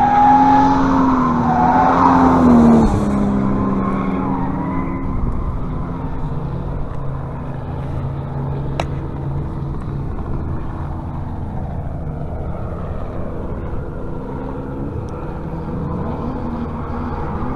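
Car engine revving hard for the first three seconds or so, its pitch rising and falling. After that comes a steadier, quieter engine rumble.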